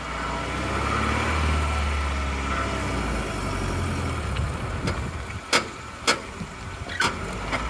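1992 Toyota pickup running with the steering at full lock: a groaning, rubbing noise from the front suspension, with several sharp pops in the second half. The noise is the sign of worn-out steering stop caps, not a bad CV axle.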